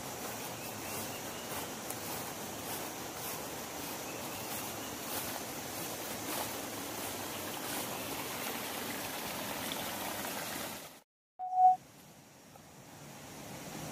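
Steady rushing of a flowing stream, with faint footsteps through grass. It cuts off sharply near the end, followed by a short, loud, single-pitched beep and then quieter forest ambience.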